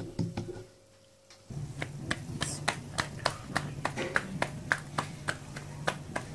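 Stuffed saag paratha slapped between the palms, a regular patting of about three slaps a second that starts about one and a half seconds in, over a steady low hum.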